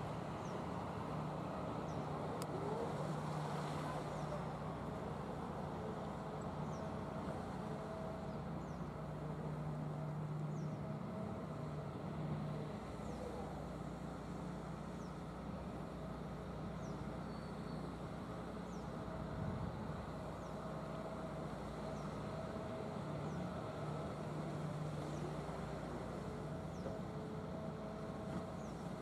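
Hitachi ZX200 hydraulic excavator's diesel engine running steadily under working load, its low note growing stronger and weaker over several seconds at a time as it digs, swings and dumps.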